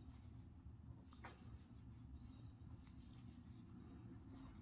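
Near silence: room tone with a faint low hum and a few soft scratches of yarn drawn over a crochet hook.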